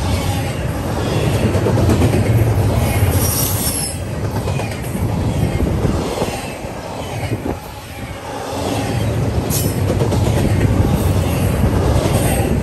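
Double-stack intermodal container train rolling past close by: steel wheels rumbling on the rails, with a few brief high wheel squeals. The noise dips for a moment about eight seconds in.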